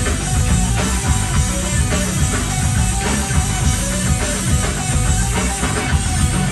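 Live rock band playing at full volume, with electric guitars over a steady driving drum beat, heard from within the concert crowd.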